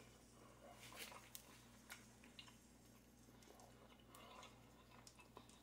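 Near silence, with faint scattered clicks and soft smacks of a person chewing a bite of burger.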